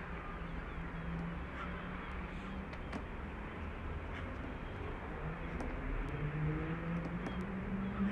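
Steady low engine hum over a wash of traffic-like noise, growing a little louder and higher after about six seconds, with a few faint ticks.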